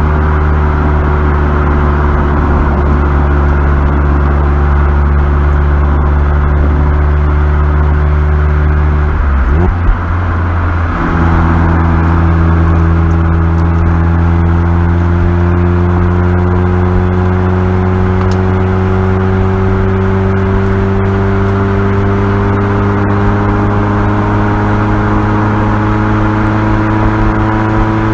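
Mazda Roadster's four-cylinder engine heard through its exhaust, running steadily at low revs under light throttle. About ten seconds in the note briefly breaks off, then comes back a little higher and rises slowly as the car accelerates.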